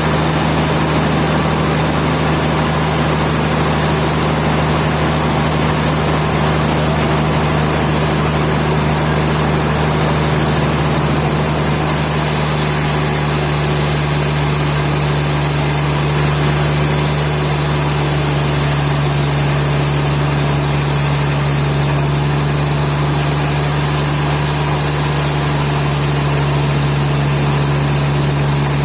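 Sawmill machinery running steadily: a constant low motor hum with a steady hiss over it.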